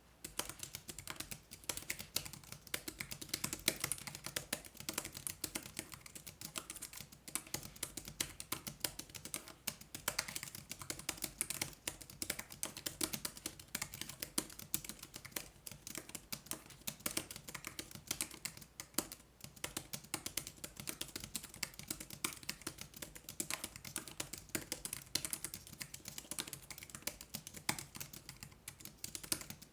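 Continuous fast typing on a NILLKIN Cube Pocket foldable Bluetooth keyboard: a dense, uneven run of key clicks that starts abruptly and pauses briefly near the end.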